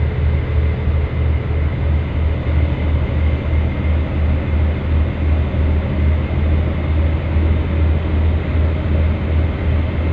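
Tugboat's diesel engines running, heard from inside the wheelhouse: a steady, loud low drone with a regular throb.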